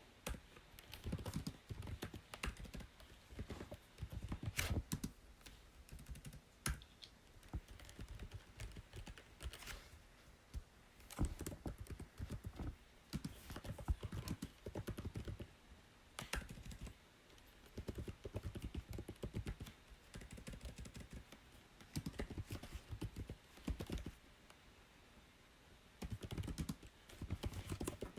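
Typing on a computer keyboard in quick runs of keystrokes broken by short pauses.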